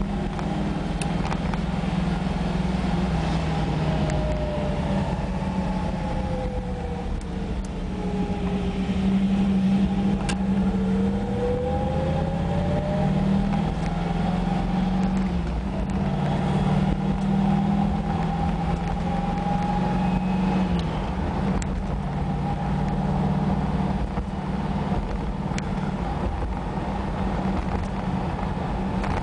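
1970 Camaro Z28's 350 V8 running steadily under way, heard from inside the car, its pitch rising and falling gently with road speed. The engine note drops abruptly twice, about halfway through and again a few seconds later.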